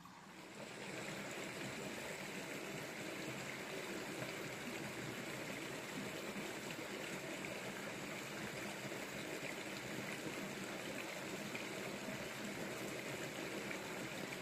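Steady rush of running water from a stream, coming up about half a second in and holding even.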